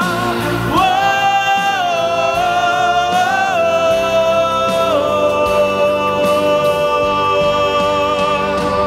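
Male gospel singer holding long sustained notes into a microphone over instrumental accompaniment, sliding up to a higher note about a second in and stepping down to a long held note about five seconds in.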